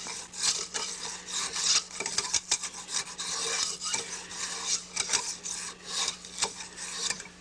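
Steel chisel scraping along a split-cane bamboo rod strand held in a wooden jig, in repeated rasping strokes that rough the strand down to near its finished size.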